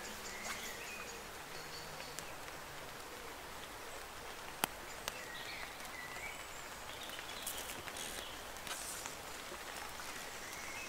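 Steady outdoor hiss of a river bank with small birds chirping now and then, and two sharp clicks close together about halfway through.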